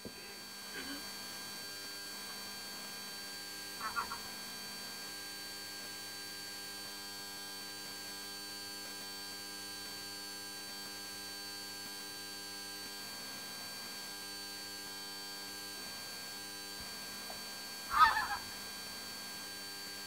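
Steady electrical hum with a few waterbird calls over it: a short call about four seconds in and a louder one near the end.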